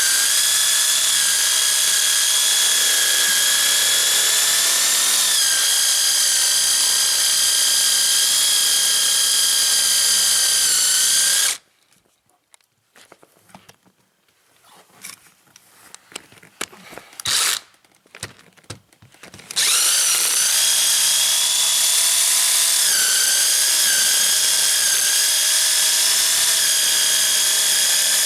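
Power drill boring a hole for wiring: a steady high-pitched motor whine that dips briefly in pitch now and then as it bites. It stops about halfway through, leaving a few seconds of small knocks and one short burst, then runs steadily again.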